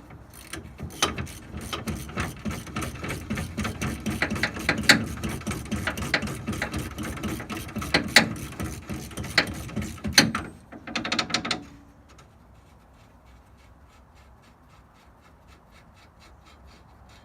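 Ratchet wrench clicking rapidly as a leaf-spring U-bolt nut is run off on a Ford F350. The clicking stops after about ten seconds, and faint, even ticking follows.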